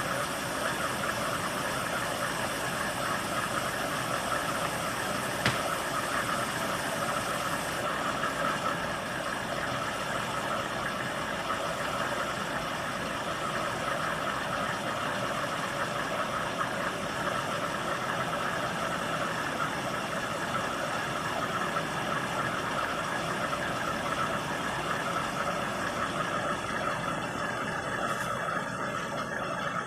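Washing machine running its wash stage: a steady mechanical churning, with a single sharp click about five seconds in.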